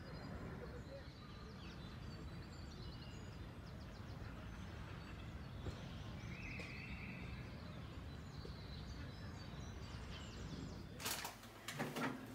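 Outdoor park ambience: a faint, steady low rumble with small birds chirping now and then. Near the end, a few sharp knocks.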